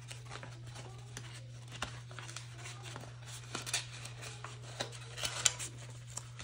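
Light handling of paper money and cards on a tabletop: soft rustling and small scattered clicks, with one sharper click about five and a half seconds in, over a steady low hum.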